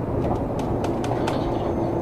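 Seibu 20000 series electric commuter train running, heard from aboard: a steady rumble of wheels and running gear with a faint steady tone, and a run of sharp clicks through the first second and a half.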